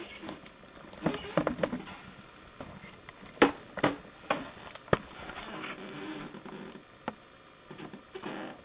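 Handling noise: scattered clicks, knocks and rustling, with a sharp click about three and a half seconds in and another near five seconds.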